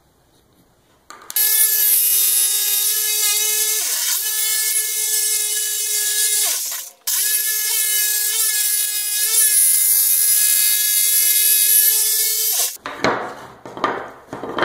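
Black & Decker corded jigsaw cutting a curved bracket out of a pine board, its motor running at a steady whine with the rasp of the blade. The motor bogs briefly about four seconds in and stops for a moment near seven seconds before cutting on. Near the end, the cut wooden pieces knock and scrape on the workbench.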